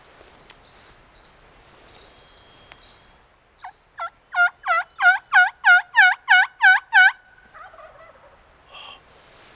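Turkey yelps: a run of about ten evenly spaced notes at roughly three a second, loud and close, the first few building in volume.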